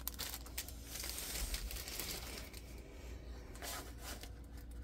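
Crinkling and rustling of a diamond painting canvas and its plastic protective film being handled and unfolded, with scattered small clicks.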